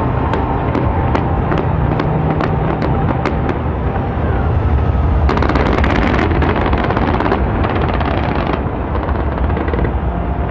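Large fireworks display: a continuous low booming rumble under a rapid stream of sharp bangs, about three or four a second. A denser, louder burst of crackling comes midway and lasts about three seconds.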